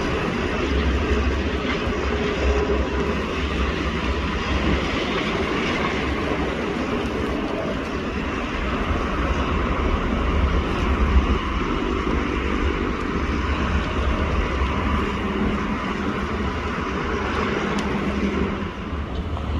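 Heavy machinery running with a steady low rumble, its engine note shifting now and then.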